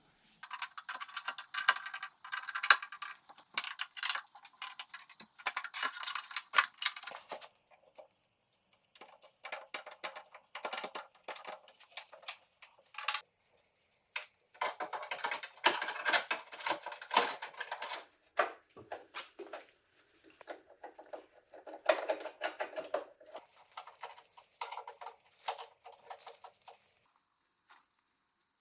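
Ratchet wrench clicking in rapid runs, about five stretches with short pauses between, as nuts are run down and tightened.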